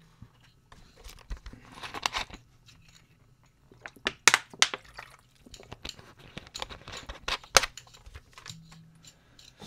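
Handling sounds of an XHP70 flashlight being screwed back together by hand: the threaded body sections turn against each other in an irregular run of clicks and scrapes, with sharp clicks about four and a half and seven and a half seconds in.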